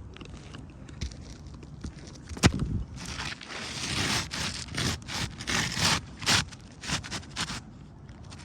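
Rough scraping and crackling on asphalt roof shingles, with one sharp knock about two and a half seconds in and a run of scrapes that stops near the end.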